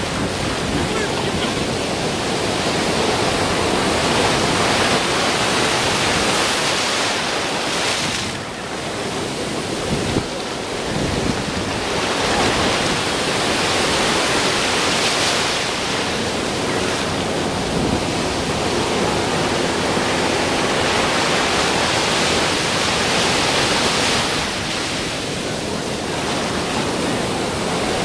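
Heavy ocean surf breaking close by, a continuous rush of churning white water and foam that swells and eases as each wave breaks.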